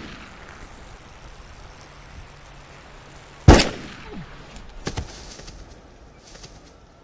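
A single loud gunshot about three and a half seconds in, followed about a second and a half later by a couple of softer knocks as a body falls onto the forest floor.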